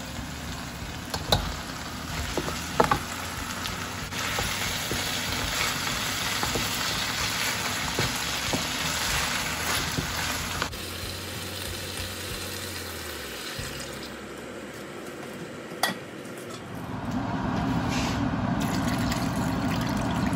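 Onions and whole crabs sizzling in a stainless steel wok, with a wooden spatula stirring and knocking against the pan a few times in the first few seconds. About three seconds before the end, liquid is poured into the wok and the sound grows louder and fuller.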